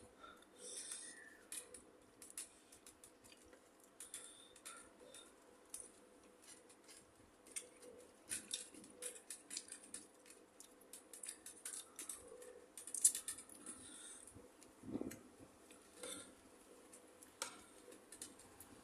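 Close-up eating sounds: someone chewing spicy cucumber salad, with irregular crunching, wet squishy mouth sounds and light clicks, one sharper click about 13 seconds in.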